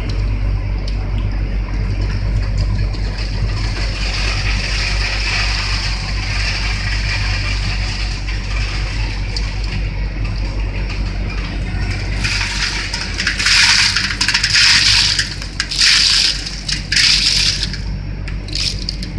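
Broad-bean frying line machinery running: a steady motor hum under a rushing hiss, with four louder rushing surges about a second apart in the last third.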